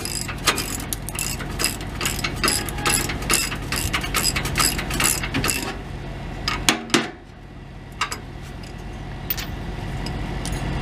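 Hand ratchet wrench clicking in quick runs as a bolt on an exhaust pipe bracket is worked loose. The clicking stops about six seconds in, followed by a few knocks of metal tools. A steady low hum runs underneath.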